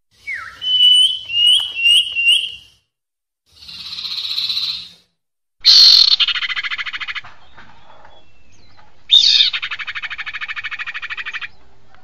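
Common iora (female) calls on a bird-lure recording. It opens with a falling note and four short high whistled notes with hooked ends. A hissing note follows, then two long, rapid churring rattles.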